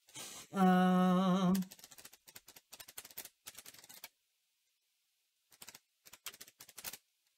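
A brief hummed note from a person, about a second long, then two runs of computer keyboard typing.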